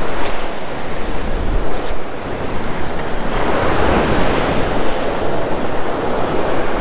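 Ocean surf breaking and washing up a sandy beach, swelling about halfway through, with wind rumbling on the microphone.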